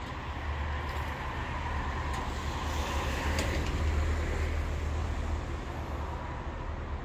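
Road traffic on a wet city street: a low rumble with tyre hiss that builds to a peak about four seconds in and then eases, as of a vehicle passing.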